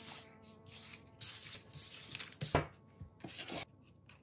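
Glossy photo-strip cards being gathered up on a wooden tabletop and slid into a paper sleeve: short brushing and scraping of card against card and paper, with a sharp tap about two and a half seconds in.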